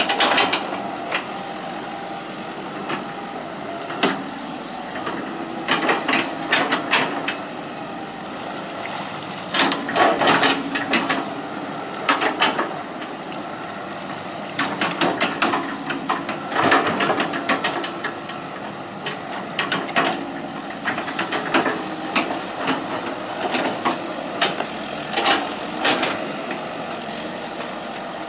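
Hitachi EX120 hydraulic excavator at work: its engine runs steadily, with repeated irregular metallic clanks and knocks.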